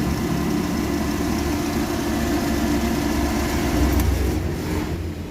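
Suzuki F10A four-cylinder engine idling steadily with a misfire, which the mechanic thinks is a dead cylinder number 4 needing a new spark plug. A short tick comes about four seconds in.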